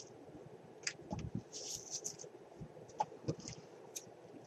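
Faint handling sounds: a paper circle cut from a book page rustling in the hands, with a few small scattered clicks as scissors are handled.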